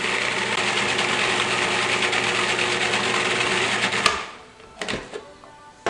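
Cuisinart food processor motor running steadily, pureeing cooked spinach and garlic thinned with stock, then switched off about four seconds in. A couple of light knocks follow.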